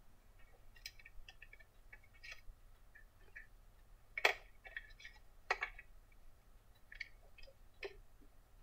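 Scattered light clicks and taps of small tools and parts being handled on a workbench, with two louder knocks about four and five and a half seconds in.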